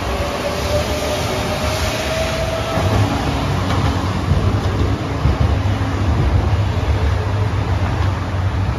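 Low-floor articulated electric tram passing close by: a steady low rumble of wheels on rail that grows louder about three seconds in, with a thin whine rising slightly in pitch over the first couple of seconds.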